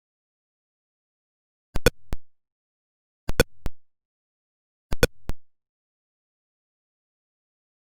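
Atari Pong sound effects: short square-wave beeps in three quick groups about a second and a half apart, each group two blips close together and a third just after.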